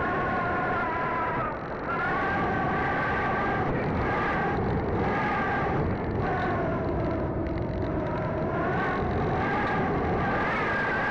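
Electric motor and propeller of a Sky Surfer RC glider whining steadily in flight, heard close up from a camera on the plane over a rushing noise; the pitch drifts slowly up and down with a brief dip about one and a half seconds in.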